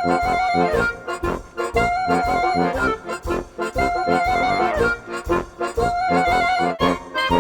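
Background music: an upbeat accordion-led tune with a steady beat, its melody phrase repeating about every two seconds.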